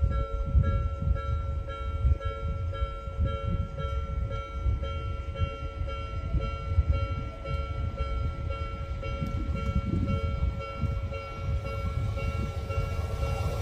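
Railway level crossing warning bell ringing steadily in a repeating pulse over a low rumble. Near the end, the noise of an approaching train rises.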